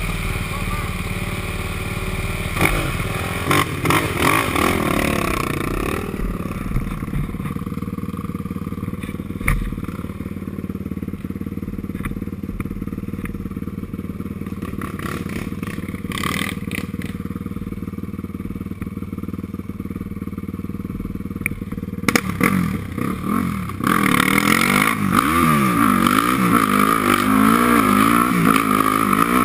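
Yamaha sport ATV engine: a few revs in the first few seconds, then a long stretch running steadily at low throttle, then revving up and down under hard throttle for the last several seconds as the quad accelerates along a dirt trail.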